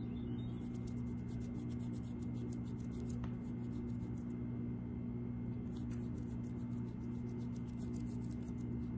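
Fingertips rubbing and fluttering close to the microphone, making a rapid run of crisp ticks, about six a second, with a short pause about halfway through. A steady low hum runs underneath.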